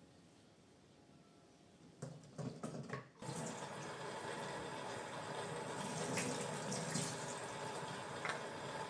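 A few knocks, then a tap is turned on about three seconds in and water runs steadily into a sink.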